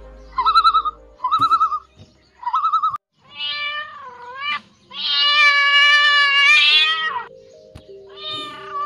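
Domestic cat meowing: a short meow, then a long drawn-out meow of about two seconds, then another short meow near the end. Before the meows there are three short wavering calls in the first three seconds, over steady background music.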